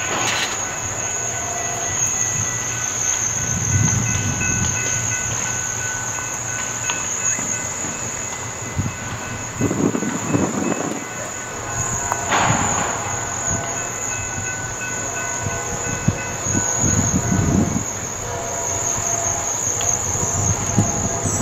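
A train rolling by, its rumble swelling and fading, with a couple of sharp clanks. A steady, high-pitched insect drone runs underneath.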